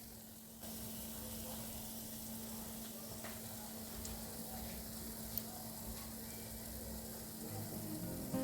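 Chicken wing pieces sizzling in an air fryer: a steady hiss with a low, even hum underneath.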